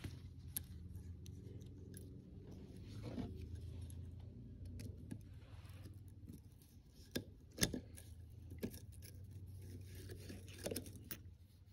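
Snap ring pliers working a snap ring onto a transmission output shaft, above its spacer and bearing: faint metal scraping and a few sharp clicks, the loudest about eight seconds in, over a low steady hum.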